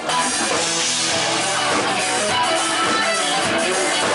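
A live band playing: electric guitar over drums, starting abruptly.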